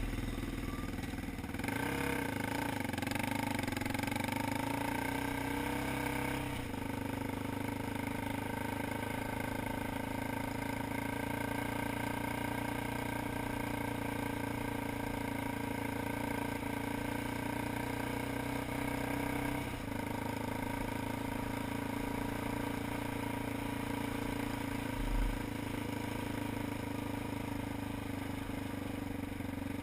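ATV engine running steadily while being ridden, its engine speed changing a few times. A single low thump comes about 25 seconds in.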